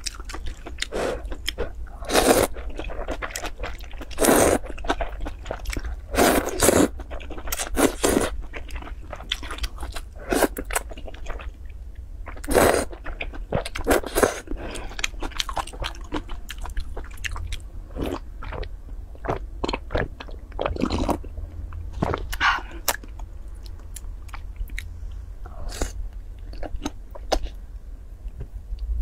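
A person slurping and chewing noodles up close: repeated short, loud slurps of noodles, with wet chewing between them. A steady low hum runs underneath.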